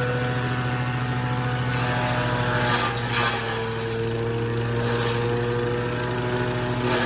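Engine-driven grass chopper machine running at steady speed, with brief rushes of chopping noise about three seconds in, around five seconds and near the end as grass is cut. Its running note sags slightly after the first rush.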